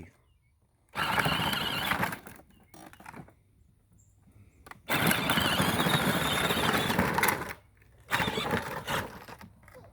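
Motor of a child's ride-on four-wheeler running as its tires spin on the dirt driveway to dig a hole, in three bursts that start and stop abruptly, with a faint high whine.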